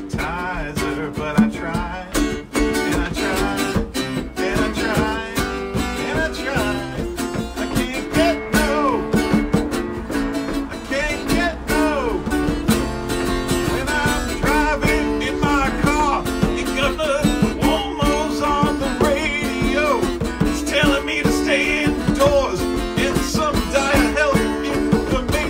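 Live acoustic band music: an acoustic guitar strummed steadily over a hand-played djembe, with a bending melody line running over the top.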